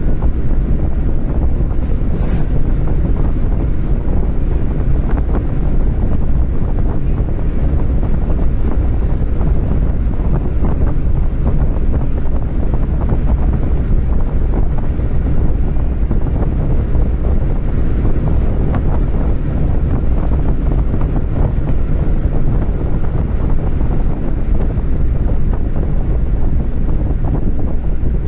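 Steady low rumble of road and wind noise inside a moving car, with wind buffeting the microphone.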